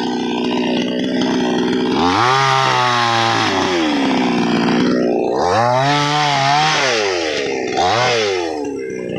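Chainsaw engine running and cutting wood. Its pitch drops and wavers three times as the chain is loaded in the cut, and picks back up in between.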